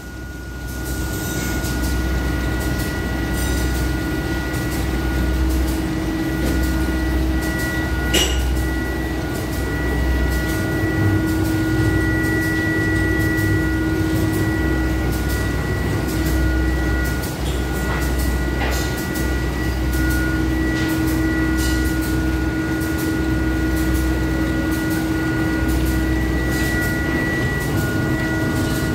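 Ribbon blender running empty: its electric motor and drive give a steady hum with a thin high whine and a low rumble that swells and fades every couple of seconds. A sharp click comes about eight seconds in.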